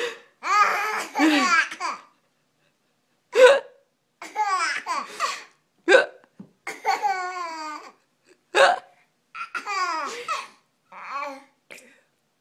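A woman hiccuping sharply every two to three seconds, each hiccup followed by a short burst of a baby's high-pitched laughter.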